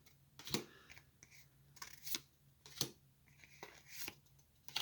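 Pokémon trading cards being handled: a series of faint, irregular soft clicks and paper rustles as the cards are slid and flicked against each other.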